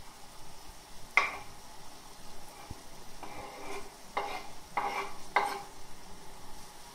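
A knife scraping shredded fresh cabbage off a wooden cutting board into a pot: a sharp knock about a second in, then a run of about five short scrapes roughly half a second apart near the end, over a faint steady sizzle.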